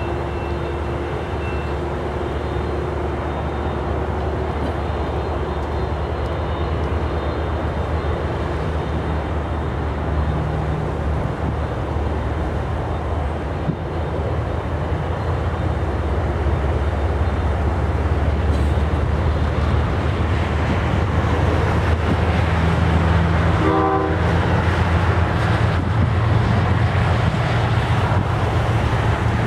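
CSX freight train's diesel locomotives, an ES40DC and a C40-8W, approaching: a steady low rumble that slowly grows louder. Late on, a brief pitched horn note sounds over it.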